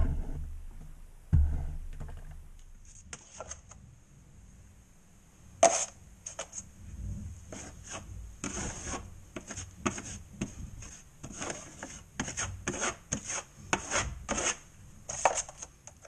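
Steel drywall taping knife scraping wet joint compound in a long run of short strokes, loading off the mud pan and spreading over a mesh-taped patch. Two dull knocks come near the start.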